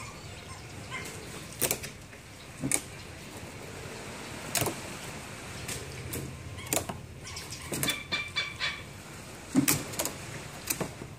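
Hornbills feeding from plates: scattered sharp knocks and clacks of bills on the plates, about six in all, with a brief run of clucking bird calls about eight seconds in.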